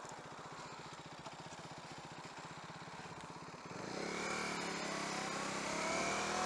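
KTM Duke 390's single-cylinder engine turning over at low revs with an even pulse. About four seconds in the throttle opens and the engine note climbs as the bike pulls away, rising twice before the end.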